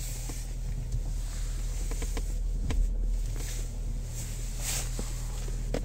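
Kia Optima steering column creaking: short scattered creaks and clicks from the plastic column trim, over a steady low hum. The creaking comes from plastic under tension from the column's tilt adjustment, and is worse in cold weather.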